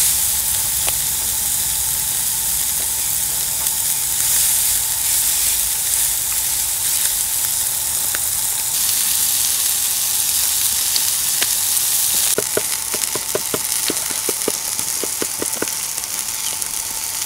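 Flattened whole chicken sizzling on a hot steel grill grate over charcoal embers, a steady hiss. About three-quarters of the way in a knife starts chopping herbs on a wooden cutting board, a quick run of taps.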